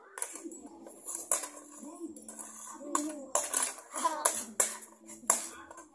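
Metal spoons clinking against plates in a series of sharp clicks as the food is eaten, with children's voices in between.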